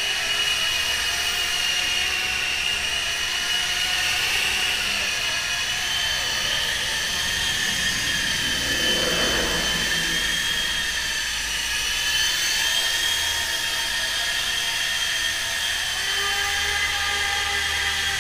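High-pitched whine of the small electric motors of a radio-controlled model, its pitch drifting slowly up and down, with a brief rushing swell about nine seconds in.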